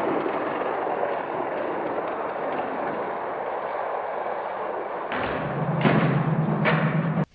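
1/64 scale die-cast cars rolling fast down a plastic Hot Wheels track, a steady rolling rattle. About five seconds in come three knocks, the cars hitting the end of the run at the finish, with a low hum under them.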